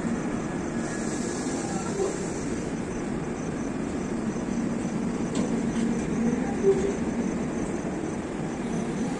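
LHB passenger coaches of an express train rolling past at speed, with a steady rumble of steel wheels on rail and a few faint clicks around the middle.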